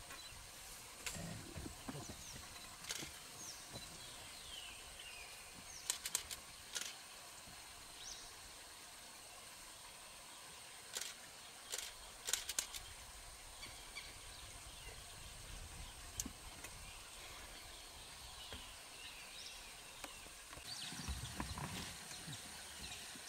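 Quiet wetland ambience: small birds chirping faintly over a steady high drone, with scattered sharp clicks and snaps, several of them bunched together about halfway through. Low rustling bumps come near the start and again near the end.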